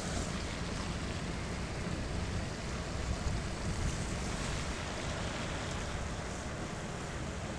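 Steady rushing of wind over the microphone of a moving car, with tyre hiss on a wet road.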